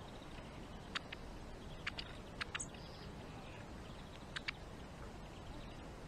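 Long-tailed tits pecking at seed in a wooden trough feeder: light, sharp taps, mostly in quick pairs, a few times over a faint steady background hiss.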